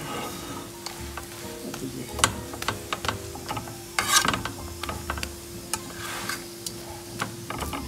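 Paratha frying on a tawa with a light sizzle, while metal tongs repeatedly click and scrape against the pan as the folded paratha is pressed and turned; the sharpest clicks come about two and four seconds in.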